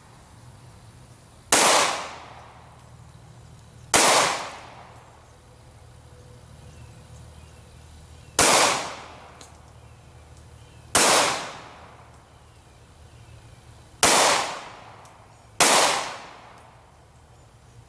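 Six single .40 S&W pistol shots from a Glock, fired one at a time a few seconds apart, the last two closer together. Each is a sharp crack that dies away over about half a second.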